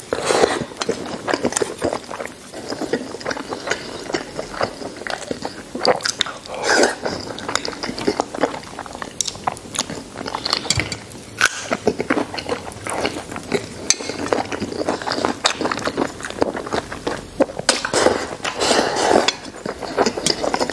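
A man eating braised pork knuckle with rice, chewing and slurping mouthfuls in irregular bursts, with occasional clinks of chopsticks against a metal bowl.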